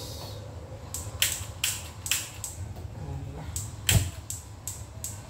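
Gas stove burner being lit: about eight sharp ignition clicks at irregular spacing, the loudest about four seconds in, as the burner is clicked repeatedly until it catches.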